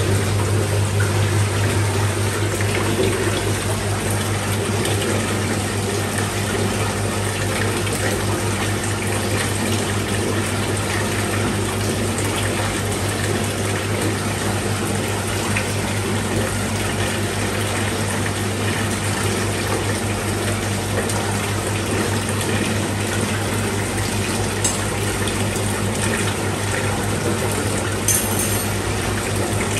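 Water running steadily into a fish tank from its circulation pump, over a steady low pump hum.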